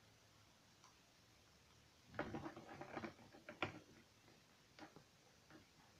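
Faint clicks and rustling of a plastic rubber-band loom and hook being handled: a quick cluster of clicks about two seconds in, with one sharper click, then a few light ticks; otherwise near silence.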